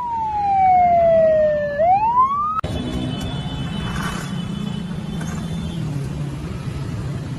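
Fire-rescue vehicle's siren wailing, its pitch falling slowly and then starting to rise again, cut off abruptly about two and a half seconds in. A steady low engine rumble follows.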